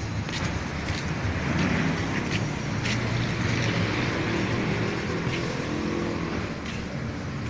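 A vehicle engine idling steadily, with a few light clicks over it.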